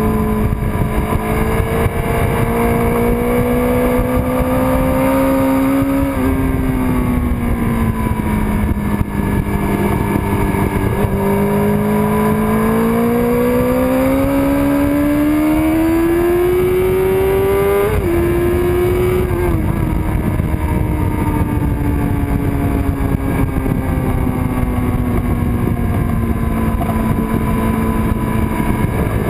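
1999 Kawasaki ZX-6R's inline-four engine at speed on track, its note climbing and falling through the corners, with a sudden drop in pitch about eighteen seconds in as it shifts up. Steady wind rush on the microphone underneath.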